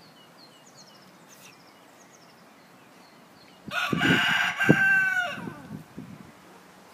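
A rooster crowing once, about four seconds in: a pitched call of about a second and a half that falls away at the end. Small birds chirp faintly before it.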